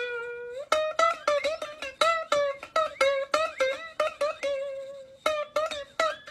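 Background music: a quick, bright plucked-string tune in the manner of a ukulele or mandolin, with short notes several a second and one longer held note near the start.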